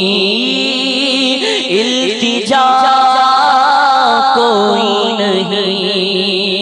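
Male voice singing a devotional Urdu naat in long, wavering held notes. A new, higher phrase begins about two and a half seconds in.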